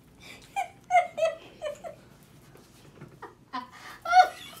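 A woman laughing in short, rapid bursts, with a louder laugh about four seconds in.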